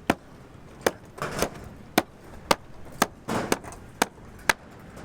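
Hammer blows at a building site, sharp knocks about two a second, with two short scraping noises between them.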